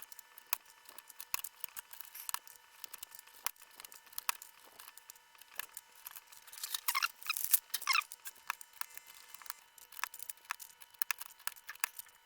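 Plastic keycaps being handled and fitted on a mechanical keyboard: scattered small clicks and rattles, with a quick flurry of them about seven to eight seconds in.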